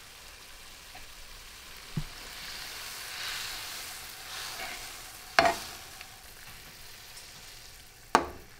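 Capers sizzling in a hot skillet of oil, lemon juice and wine while a spatula stirs them: a steady frying hiss that swells around the middle. Two sharp clicks come a little past halfway and again near the end.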